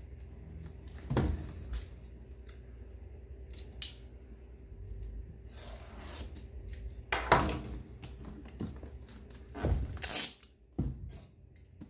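Plastic shrink wrap on a small cardboard box crinkling and rustling under the fingers in several short, sudden bursts, the loudest about ten seconds in, as the wrap is picked at to open it.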